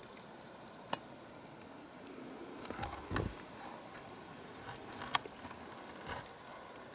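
Quiet outdoor ambience in snowy woods: a faint steady hiss with a few scattered soft clicks and crunches, one near 1 second, a couple around 3 seconds and one near 5 seconds.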